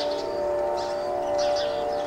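A train horn holding a steady chord of several tones, with small birds chirping over it in short high calls.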